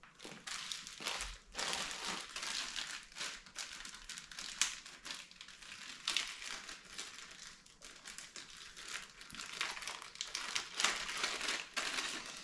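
Clear plastic packaging bag crinkling and rustling as it is handled and opened by hand, with a steady run of sharp crackles.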